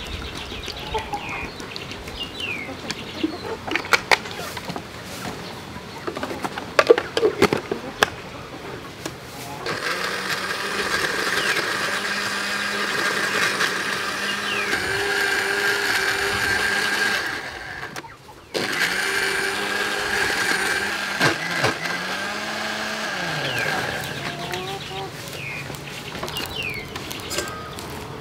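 Panasonic blender motor running, chopping pandan leaves in water. A few knocks come first. The motor starts about ten seconds in, stops for a moment, runs again, then winds down with a falling pitch.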